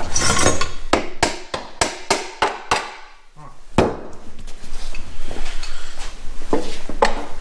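Ratchet wrench working the bolts on top of a Volvo T6 inline-six engine: a run of sharp clicks about five a second, then looser knocking and handling noise on the bare engine.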